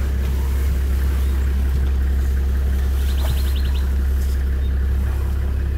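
Safari vehicle's engine idling, a steady low hum. About three seconds in, a short high-pitched trill of rapid ticks.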